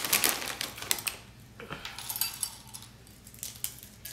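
A hand rummaging in a plastic snack bag of pretzel sticks: the bag crinkles and the pretzels rattle for about the first second, followed by scattered light crackles and snaps as the pretzels are handled and broken.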